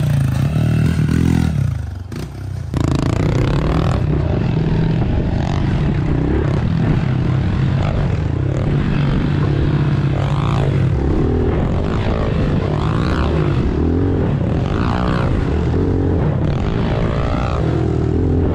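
Dirt bike engines revving up and down as they are ridden over jumps and berms, heard largely from a helmet camera on one of the bikes: a steady low engine drone with revs repeatedly rising and falling over it. The sound changes abruptly about three seconds in.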